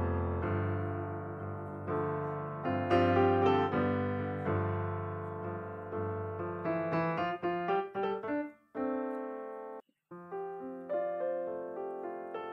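Background piano music, chords and melody notes, with a brief break about ten seconds in.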